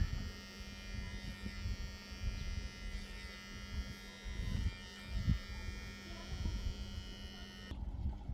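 Steady buzz from a small motor or electrical device, made of many fixed tones, with low rumbling noise underneath; the buzz cuts off suddenly near the end.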